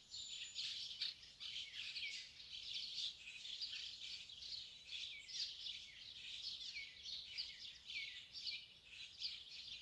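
A chorus of small birds: many short, high chirps and calls overlapping without a break, a lot of them sliding quickly down in pitch.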